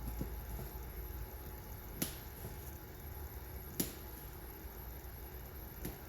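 Laser-cut balsa pieces being cut free of their sheet: three short sharp clicks, roughly two seconds apart, as the tabs holding them give way, over a steady low hum.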